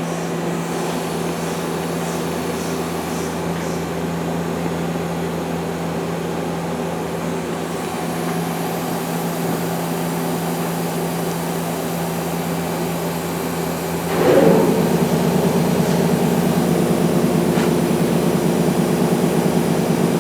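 Okuma LB200MW CNC turning and milling center running with a steady machine hum. About fourteen seconds in, the sound turns louder and rougher, with a fast flutter.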